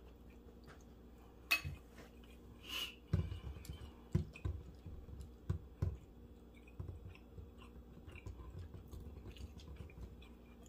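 Close-up chewing of a mouthful of chili and rice: soft, irregular jaw thumps and small wet mouth clicks, with a single sharp click about a second and a half in.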